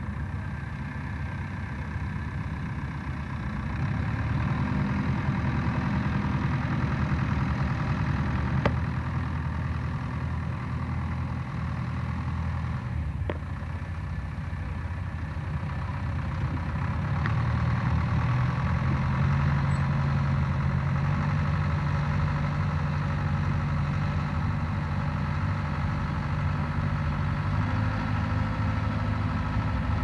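Ford tractor's diesel engine running steadily as it pulls a mounted plough, its engine note shifting now and then. Two sharp clicks, about nine and thirteen seconds in.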